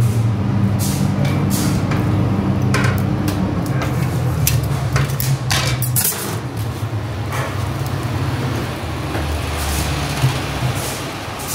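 Flat metal kebab skewers scraping and clinking as they are pulled out from under lavash bread, with bread rustling as it is folded, over a steady low rumble.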